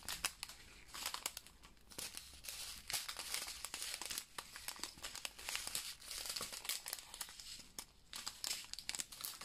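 Small clear plastic zip bags of square resin diamond-painting drills being handled and shuffled in the hands, the thin plastic crinkling with many small irregular crackles.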